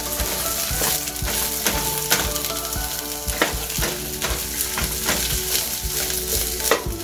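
Sliced onions sizzling in hot olive oil in a frying pan, stirred with a wooden spoon that scrapes and taps against the pan at irregular intervals.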